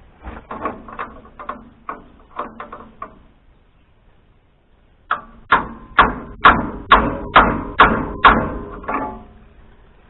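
Sharp metal knocks from striking at a stuck jam nut on a Wood-Mizer LT40 HD sawmill's adjustment to break it loose: about ten lighter strikes in the first three seconds, then after a pause about nine harder ones at roughly two a second.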